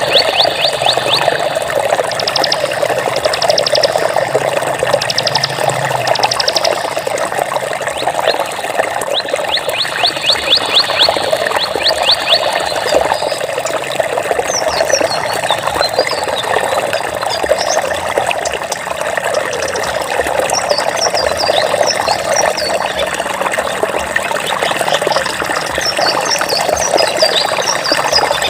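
Flowing water running steadily, like a stream trickling. Over it come high, rapid trills in short bouts during the first half, then scattered short high chirps.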